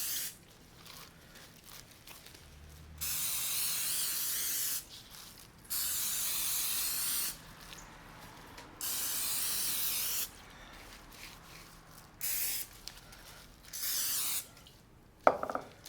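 Olive oil sprayer hissing in five separate sprays: three long ones of one to two seconds, then two short ones. The oil is being misted over a raw beef roast as a binder for the dry rub.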